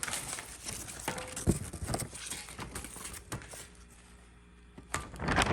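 Papers being handled and leafed through: irregular rustling and light clicks and taps, dying down about four seconds in, with a short louder rustle near the end.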